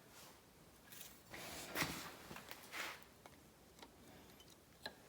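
Quiet handling noises of small engine parts being worked by hand: two soft swishes, then a few light clicks.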